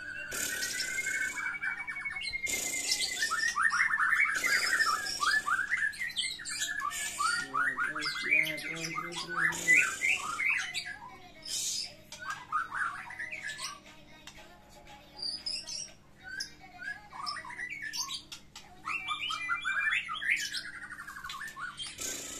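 White-rumped shama (murai batu) singing in full competitive song: a fast, varied run of clear whistles, slurred glides and trills broken by harsh rasping chatter notes. The song is densest in the first half, thins out for a few seconds, and picks up again near the end.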